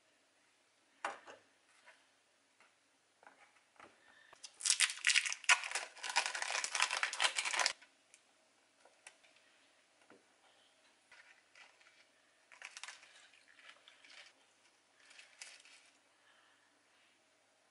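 Thin plastic film of an individually wrapped cheese slice crinkling loudly for about three seconds as it is peeled off. A single knock comes about a second in, and soft rustles and small taps follow later.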